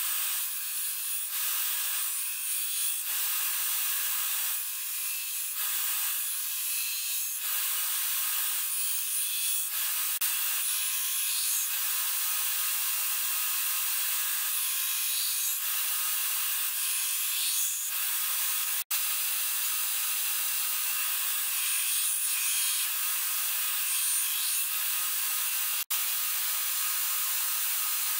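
Belt grinder running with a steady hiss from the moving abrasive belt, with a piece pressed against the belt in several passes of a couple of seconds each. The sound cuts out sharply twice, briefly, in the second half.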